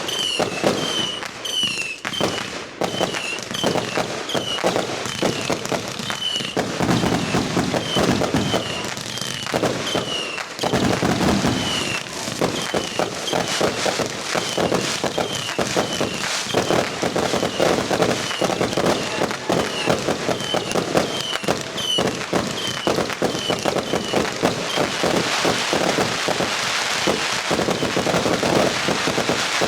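Fireworks going off in a rapid, continuous barrage of bangs and crackling. A short high chirp repeats about every 0.7 seconds through most of it, and a hissing crackle builds near the end.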